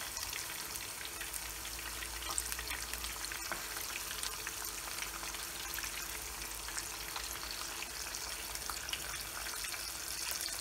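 Corn-flour-coated kasna (Capoeta) pieces frying in plenty of hot oil in a pan: a steady crackling sizzle with fine pops throughout.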